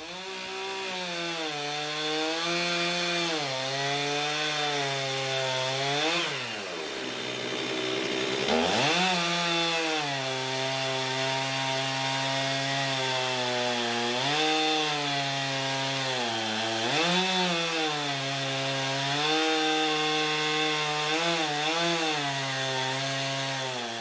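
Chainsaw running in an Alaskan chainsaw mill, held at high revs as it rips a log lengthwise into a slab. The engine pitch drops almost to idle about six seconds in and climbs back a couple of seconds later, with a few shorter dips in revs later on.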